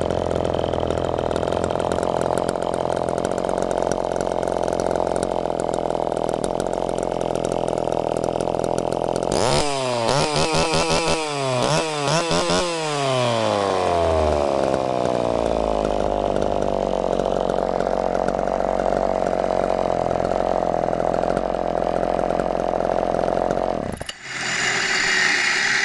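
Vintage Homelite Super Mini two-stroke chainsaw engine idling steadily. About ten seconds in it is revved several times, the pitch jumping up and down, then it slowly winds back down to a steady idle. Near the end the engine cuts off suddenly.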